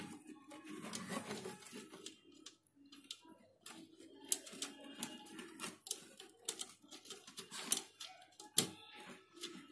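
Irregular small clicks and taps of hands fitting wire ends and terminal hardware on an electric water heater's element flange.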